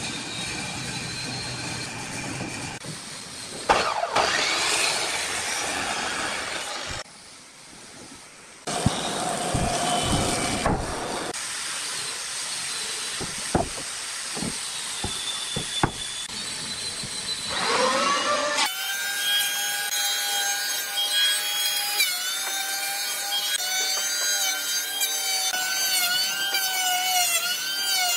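Power tools working wood in a string of short cuts: first a loud, noisy saw cutting through timber, then, from a bit past the middle, an electric hand planer whining steadily with its pitch wavering as the blade cuts.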